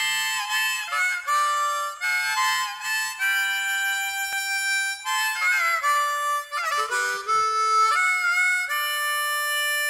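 Instrumental opening of a country gospel song: a solo lead instrument plays the melody in held notes, with a few notes bent downward about halfway through, before any singing.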